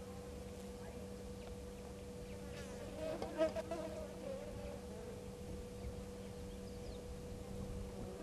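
A flying insect buzzing close past the microphone for about a second, roughly three seconds in, over a steady faint hum.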